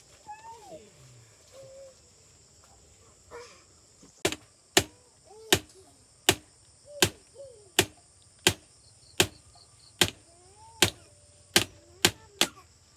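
Hammer blows on a bamboo frame: about a dozen sharp strikes, roughly one every 0.7 seconds, starting about four seconds in. A steady high insect drone runs underneath.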